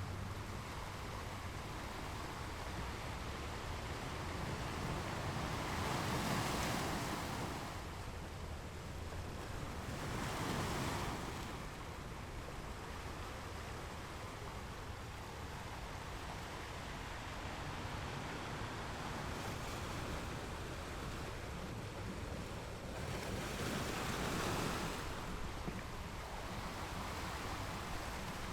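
Ocean waves breaking against rocks: a steady rushing wash of surf with three louder crashes, about six seconds in, about ten seconds in, and near the end.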